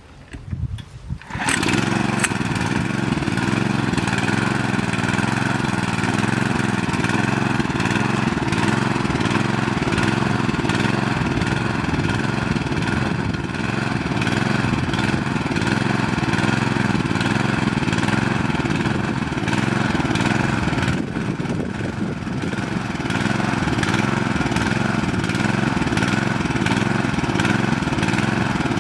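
Small petrol engine of a portable water pump starts about a second in and then runs steadily at a constant speed.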